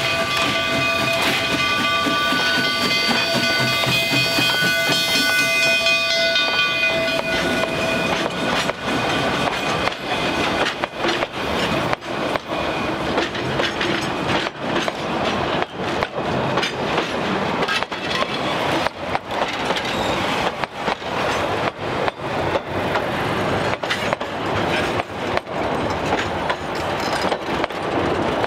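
Narrow-gauge steam locomotive's whistle blowing a long, held chord of several notes, which ends about seven seconds in. After that comes a long run of sharp clicks and knocks from the train's wheels and cars rolling along the track.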